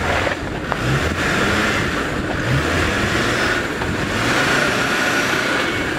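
Land Rover Discovery Td5 diesel engine running steadily under load as the 4x4 crawls up a steep, rocky off-road climb.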